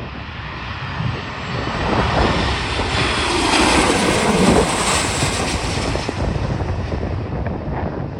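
Airliner passing close by: its engine noise swells to a peak about halfway through, drops in pitch as it goes past, and fades. Strong wind rumbles on the microphone throughout.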